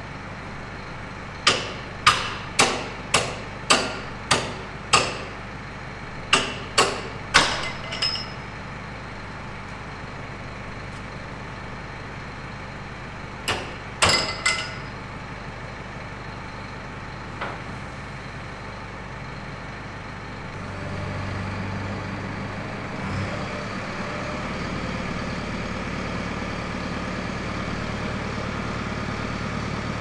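Tractor engine idling while sharp metallic knocks, about two a second, come from the rear of the grain trailer in runs of seven, four and three as its tailgate is knocked open. About two-thirds of the way in the engine speeds up and holds there, driving the hydraulics that tip the trailer body.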